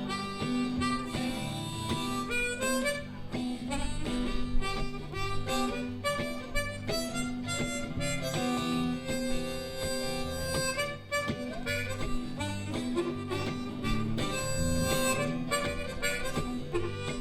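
Blues harp (harmonica) solo with the live band playing underneath, in an instrumental break between verses of a blues-rock song.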